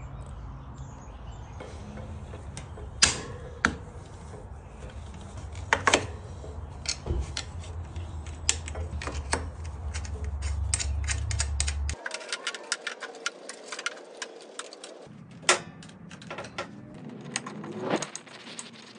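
Light metallic clicks and small rattles of hand tools and brake hardware being handled and tightened at a motorbike's brake caliper, with a dense run of quick clicks about nine to twelve seconds in. A low hum underneath stops abruptly about twelve seconds in.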